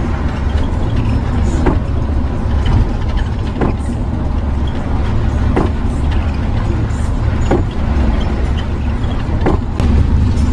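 Steady low drone of a motor home's engine and tyres on a wet road, heard from inside the cab. A windshield wiper sweeps about every two seconds.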